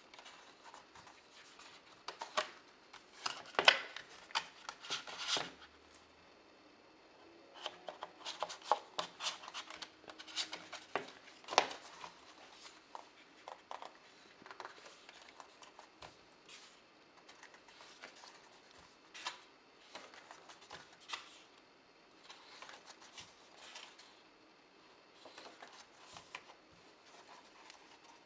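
Glossy paper pages of a CD album photobook being turned and handled by hand: bursts of paper rustling and flicks, busiest in the first dozen seconds, then sparser.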